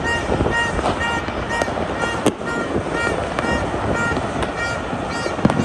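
Many distant fireworks popping and crackling across the city without a break, with a sharper bang about two seconds in. A short high tone repeats about twice a second throughout.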